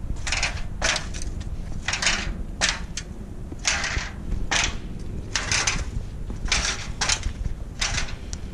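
The bent under-engine cover plate of a Honda Civic being stepped on to flatten it: about ten short scuffing, crunching sounds at irregular intervals, roughly one a second.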